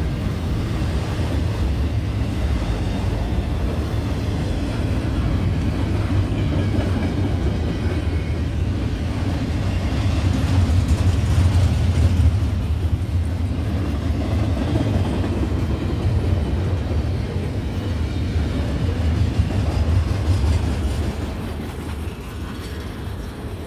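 Union Pacific double-stack intermodal freight train's well cars rolling past on the rails: a steady low rumble that fades as the end of the train goes by near the end.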